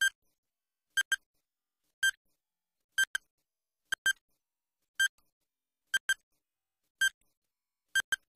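Quiz-show countdown timer sound effect: a short, high-pitched electronic beep, often doubled, once a second as the timer counts down.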